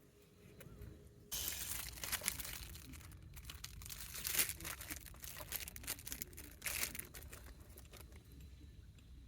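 Packaging being handled, crinkling and crumpling in quick, irregular crackles that start suddenly about a second in and die down near the end.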